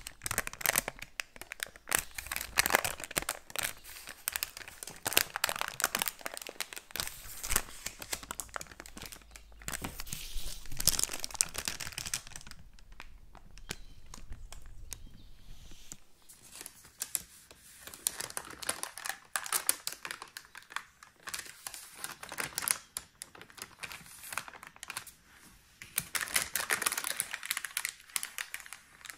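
Baking paper crinkling and rustling as it is rolled onto a wooden stick and slid out from under a layered dessert, in irregular crackly stretches with a quieter spell about halfway through.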